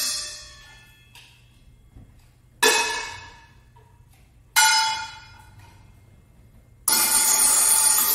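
Solo metal percussion. A ringing note fades out, then two sharp bell-like strikes about two seconds apart each ring and die away. Near the end a dense, steady metallic jingling starts suddenly.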